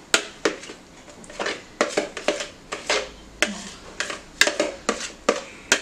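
A kitchen utensil knocking and scraping against a bowl while thick mousse is spooned out into a glass serving bowl: a run of irregular sharp clinks, roughly two or three a second.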